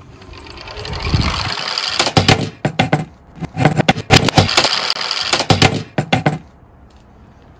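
Die-cast Tomica toy ambulance rolling down a plywood slope, with a rolling rumble building for about two seconds. Then it tips over and tumbles, making many sharp clacks and rattles of metal on wood, which stop about a second before the end.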